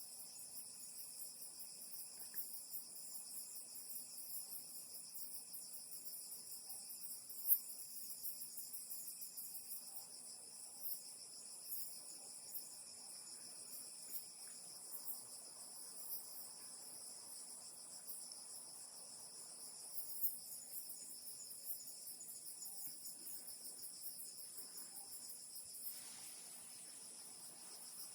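Steady chorus of insects, several continuous high-pitched trills layered together, with a few soft clicks, the sharpest about seven seconds in.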